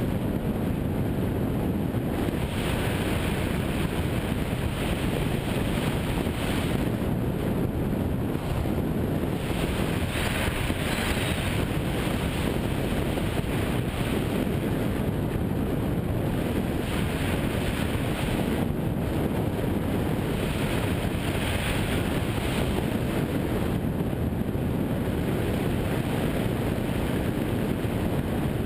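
Steady rush of wind on the microphone of a camera mounted on a hang glider in flight, swelling now and then.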